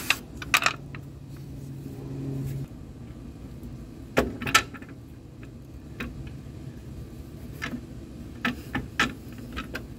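Sharp metallic clinks and knocks of steel brake shoes and their return spring being handled and seated against a truck's brake hardware, the loudest a pair of knocks about four seconds in. A low steady hum runs under the first few seconds and stops about two and a half seconds in.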